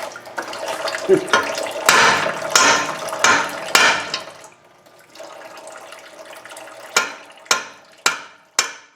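Differential gear oil pouring and splashing into a drain pan from the opened pinion end of a rear axle, thinning to a trickle and then to single drips about every half second near the end.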